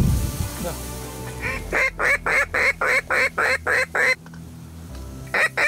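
Duck call blown in a rapid run of about ten loud quacks, roughly four a second, starting about one and a half seconds in. After a pause, a shorter run of four quacks comes near the end.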